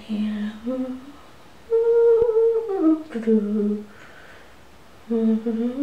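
A woman humming to herself in three short, tuneless phrases with pauses between them, the pitch gliding up and down.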